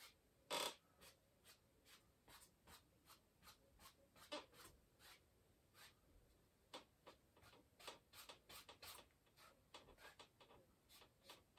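Faint, short scratchy strokes of a paintbrush dragged across an oil-painted canvas, about two or three a second, as light horizontal water lines are brushed in.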